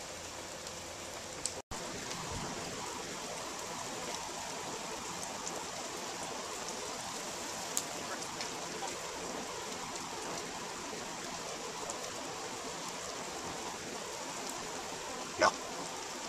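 Steady rain falling, with a few faint ticks and one short, sharp sound near the end. The audio cuts out for an instant about two seconds in.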